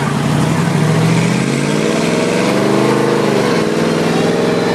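Monster truck engine heard from inside its cab while driving, the revs climbing for about a second and a half, then dropping quickly a little past the middle and holding steady.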